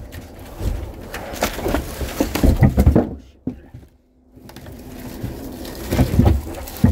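Split firewood logs being handled and set down, wood knocking against wood in a run of sharp thuds. There is a second run of knocks near the end.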